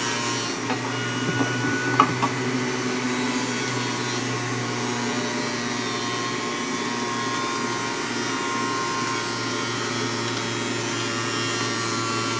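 Electric centrifugal juicer running with a steady motor hum as an apple is pressed down the feed chute with the pusher and ground. A couple of sharp clicks come about two seconds in.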